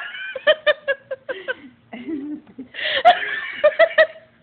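A mother and her baby laughing, in two runs of short rhythmic laughs.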